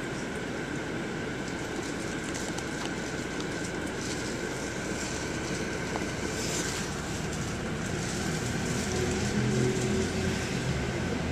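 Steady running noise inside a moving bus: engine and road rumble with scattered light rattles. A deeper engine hum comes in and grows a little louder over the last few seconds.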